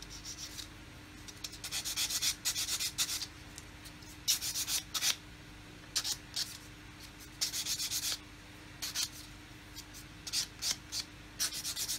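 Sanding stick rubbing back and forth on a small plastic model-kit part, in short runs of quick scraping strokes with pauses between them.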